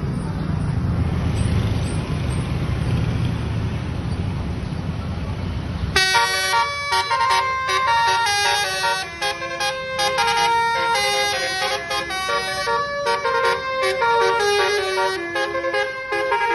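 A steady low vehicle rumble, then from about six seconds in a basuri bus horn, the Indonesian multi-trumpet "telolet" horn, plays a melody of quickly changing notes.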